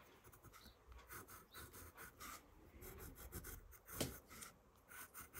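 Faint, quick back-and-forth scratching of graphite shading strokes on a paper Zentangle tile, with one sharper tap about four seconds in.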